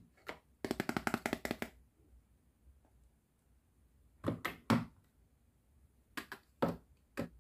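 Hard plastic toy kitchen pieces being handled: a quick run of about ten clicks in a second, then a few knocks, then light taps as plastic parts are set down and picked up.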